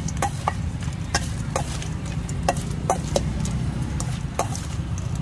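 Metal spoon tossing spicy seafood salad in a stainless steel mixing bowl, clinking and scraping against the bowl about eight times at uneven intervals. A steady low rumble runs underneath.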